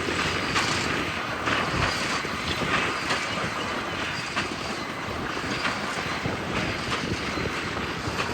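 Heavy harvest machinery running steadily, a dense mechanical rumble and rattle with faint knocks about twice a second.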